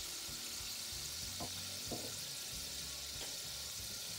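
Melted butter sizzling steadily in a stainless steel saucepan, the start of a white sauce before the flour goes in. A few faint ticks.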